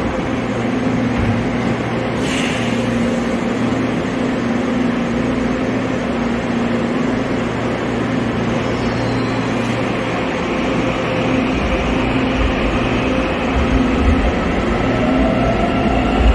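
Steady electric hum and background noise in a subway station, then a subway train coming past: its low rumble builds over the last five seconds, with a motor whine rising in pitch near the end.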